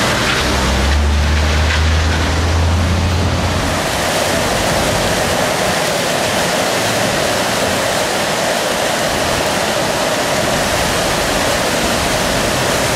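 A vehicle engine hums through the first few seconds over street noise, then stops. Throughout, a fountain splashes steadily, with water jets and the falling-water curtain of a water-drop clock display.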